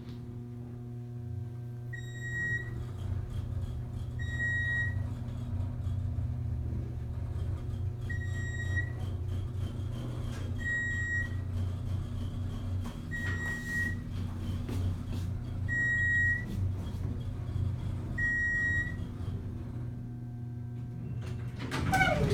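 Geared traction elevator car riding, with a steady low hum from the car and its machine. A short electronic beep sounds seven times, about every two and a half seconds, one for each floor the car passes.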